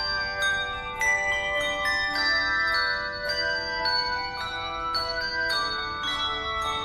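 Tuned bells playing a slow melody, each note struck and left ringing so that the notes overlap.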